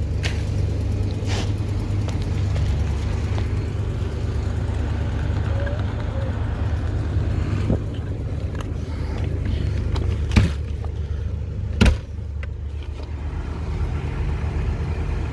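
Motorhome engine idling steadily with a low hum. Three sharp knocks in the second half, the last and loudest about twelve seconds in.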